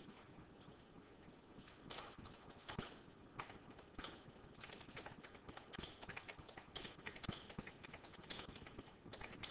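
Faint, irregular clicks and taps at uneven intervals throughout.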